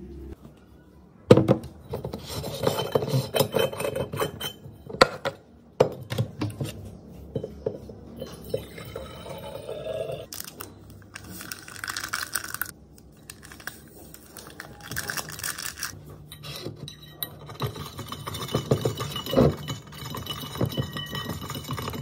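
Stainless-steel thermos bottle being handled: irregular metal clinks, knocks and scraping as its steel cap and lid are worked and set down on the desk.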